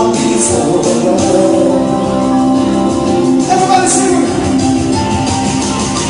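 Live rock band playing, with a singer over sustained chords and occasional crashes.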